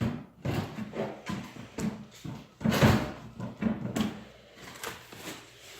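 Broom sweeping a floor: a run of quick, uneven strokes, with one louder stroke about three seconds in.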